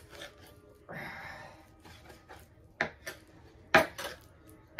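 Kitchen knife trimming fat off a raw brisket on a cutting board: a stretch of scraping and slicing about a second in, then two sharp knocks of the knife against the board, the second one the loudest.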